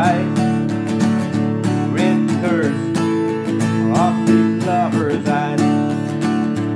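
Acoustic guitar strummed in a steady rhythm, with a rack-held harmonica playing a melody of sliding, bent notes over the chords.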